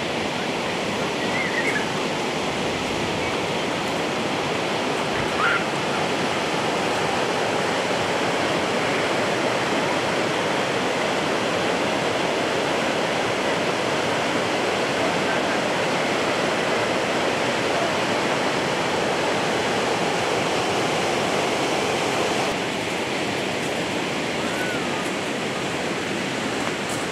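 Steady rush of flowing water, an even hiss, slightly quieter near the end, with a few faint high chirps over it.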